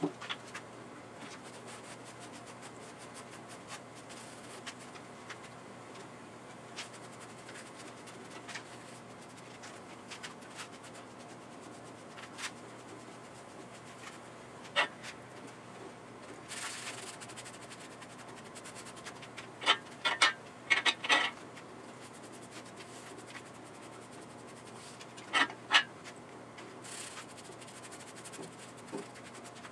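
Paper towel wet with mineral spirits being rubbed over a bare engine block, heard as soft rubbing and scratching with scattered light clicks. Two clusters of short, louder rasps stand out, about two-thirds through and again a few seconds later, over a steady low hum.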